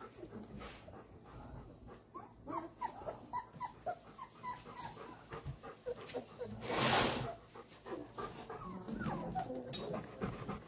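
Four-week-old golden retriever puppies whimpering in many short, high, squeaky cries that slide up and down, with small scuffling clicks as they move about. About two-thirds of the way through comes one brief, loud burst of noise.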